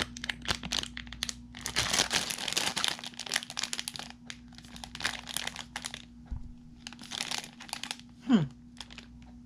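Plastic snack package crinkling in the hands as it is handled and turned over, in irregular bunches of rustling.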